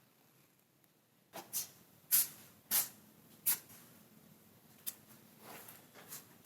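A run of short, sharp clicks and rustles, about eight of them starting about a second in, like small objects being handled close by.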